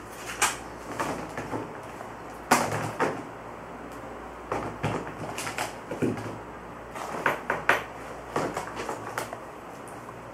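Irregular light knocks and clicks of things being handled, a dozen or so spread through the stretch, the sharpest about two and a half seconds in and again around seven seconds in, over a faint steady low hum.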